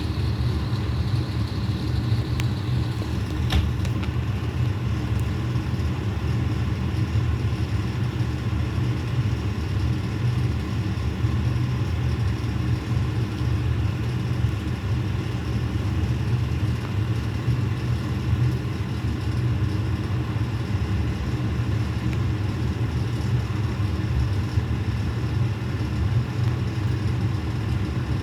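Fire truck's engine idling, a steady low rumble that does not change. A faint high tone fades out about three seconds in.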